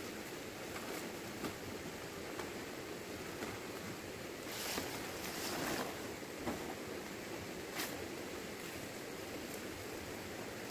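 Large fan-palm leaves rustling as they are lifted and laid onto a bamboo roof frame, with a swell of rustling about halfway through and a couple of sharp knocks, over a steady outdoor hiss.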